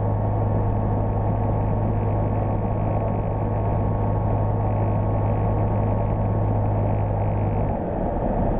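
Steady drone of a Sting light sport airplane's engine and propeller, heard from inside the cockpit on the landing approach. Near the end the low hum drops out for a moment.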